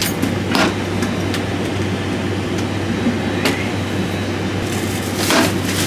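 Steady hum and rush of an airliner cabin's ventilation on the ground, with a few short clicks and knocks of galley items being handled.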